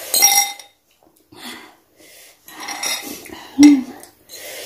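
Cutlery clinking and scraping against a dish while noodles are eaten, in several short bursts, with a bright ringing clink right at the start.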